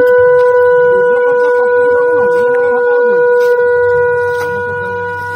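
Conch shell (shankha) blown in one long, steady, unbroken note, growing a little softer after about four seconds, with faint voices underneath.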